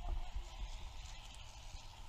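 Wind buffeting the camera microphone in an uneven low rumble, with faint shouted voices about a fraction of a second in.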